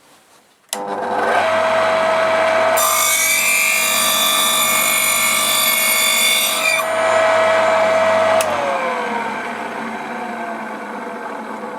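Homemade small bench circular saw, driven by a 550 W capacitor-connected motor at 3000 rpm and fitted with a fine-toothed metal-cutting disc cutter as its blade. It clicks on about a second in and spins up to a steady whine, then cuts a shallow 2 mm kerf into a small wooden block for about four seconds. It clicks off and winds down with falling pitch.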